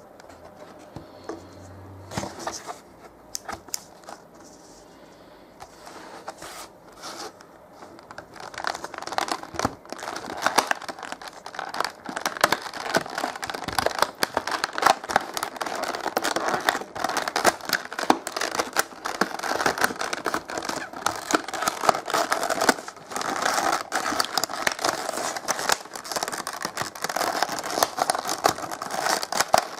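Toy packaging being opened and handled by hand: plastic and cardboard crinkling, scraping and tearing in quick irregular crackles, sparse at first and busier from about eight seconds in.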